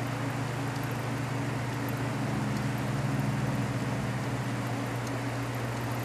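Antique Frigidaire refrigerator compressors running with a steady electric hum, the 1933 unit still pumping down its low side while being charged with refrigerant. A steady hiss of rain lies under it.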